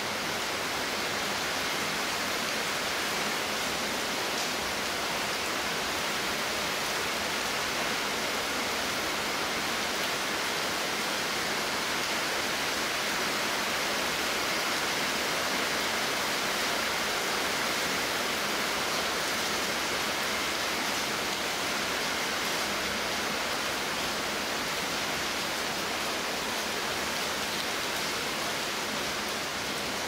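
Torrential typhoon rain falling hard and steadily, an unbroken hiss with no letup.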